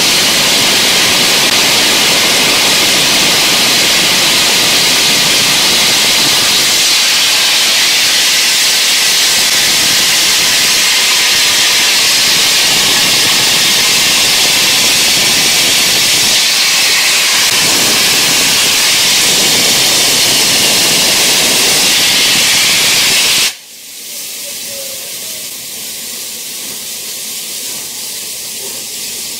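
A1 Pacific steam locomotive 60163 Tornado venting steam in a loud steady hiss that cuts off abruptly about 23 seconds in, leaving a quieter hiss.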